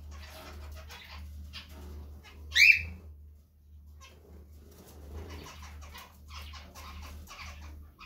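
A pet finch rustling and scratching about in its wicker nest house, with one loud, short chirp that falls in pitch about two and a half seconds in. A low steady hum runs underneath.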